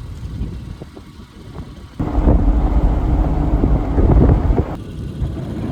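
Thunder: a loud, deep rumble that starts suddenly about two seconds in with a few sharp cracks and eases near the end, over the steady low rumble of a vehicle.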